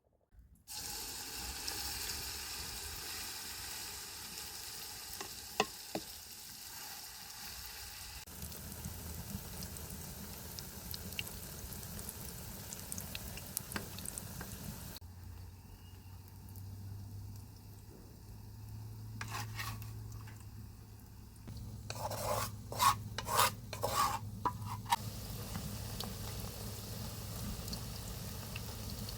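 Food sizzling as it fries in a pan, with a run of sharp knocks about two-thirds of the way through.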